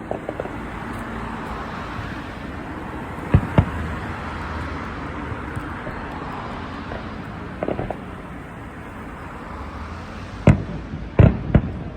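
Aerial fireworks shells bursting: a pair of sharp bangs about three seconds in, a quick cluster near the middle, and three louder bangs near the end, over a steady background noise.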